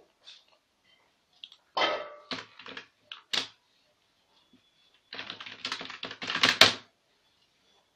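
Computer keyboard typing: a short run of keystrokes about two seconds in, then a quicker, denser run from about five to seven seconds in, the last strokes the loudest.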